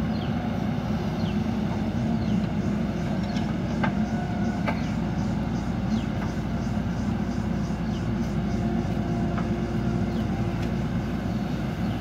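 JCB backhoe loader's diesel engine running steadily under hydraulic load as the backhoe arm digs and swings, with a few sharp knocks from the working machinery over it.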